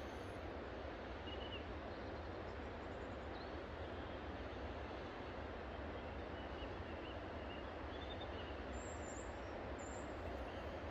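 Steady, even outdoor background rush with a few faint, short bird chirps scattered through it.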